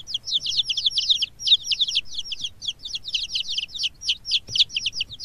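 Baby chicks peeping: rapid, high-pitched cheeps, each sliding downward, many a second and overlapping.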